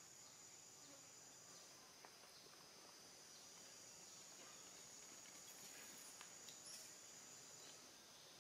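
Near silence outdoors, filled by a faint, steady, high-pitched drone of insects, with a few faint clicks over it.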